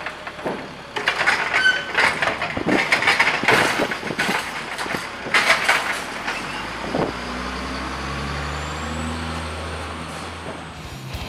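Sterling Condor garbage truck with a Heil Formula 7000 automated side-loader body: a run of sharp knocks and clatters as the arm sets the emptied recycling cart back down at the curb. From about seven seconds in, the diesel engine runs steadily with a faint rising whine.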